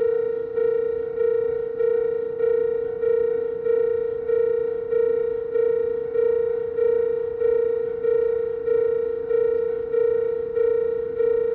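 Old-type warning alarm of a station's in-platform level crossing ringing, an alarm tone now becoming rare: a steady tone struck about every 0.6 seconds, each stroke fading before the next. It warns that a train is approaching.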